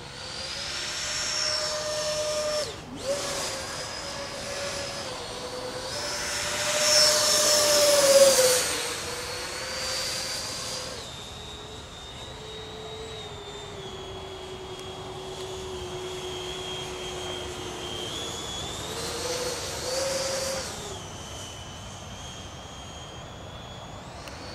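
Electric ducted fans of a Freewing MiG-29 RC jet whining in flight, the pitch stepping up and down with the throttle. It is loudest in a close pass about eight seconds in, the pitch dropping as it goes by. It then runs steadier at lower throttle, with a short burst of power around twenty seconds.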